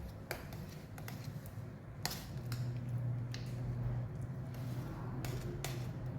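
Scattered light clicks and knocks, about eight in six seconds, from something being handled, over a steady low hum.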